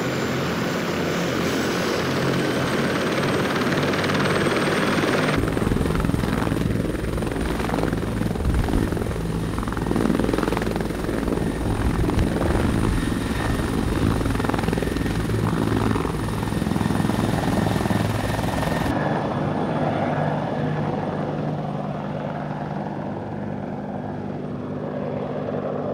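Bell CH-146 Griffon twin-turbine helicopters running with rotors turning, first on the pad and then lifting off and flying. A steady high turbine whine sits over the rotor noise. The sound changes abruptly twice, about five seconds in and near nineteen seconds, and is a little quieter in the last few seconds.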